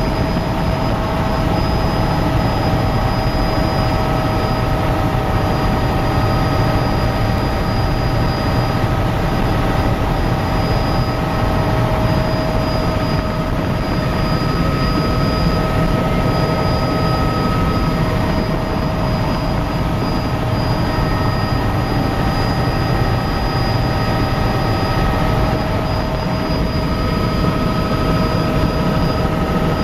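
Helicopter in flight heard from inside the cabin: a loud, steady drone of engine and rotors with several steady whining tones running through it.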